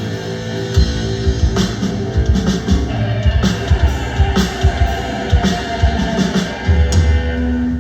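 Live rock band playing on a stage PA: guitar with a drum kit, the drums coming in about a second in with busy hits, then the music cuts off near the end.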